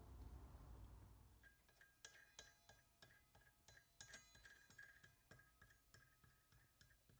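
Faint, irregular metallic clinks of small steel parts: a nut and threaded rod being handled, each clink ringing briefly at the same bright pitch. They begin about a second and a half in.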